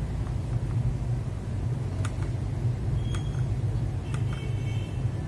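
Steady low rumble in the background, with a few faint clicks and short high beeps about two to four and a half seconds in.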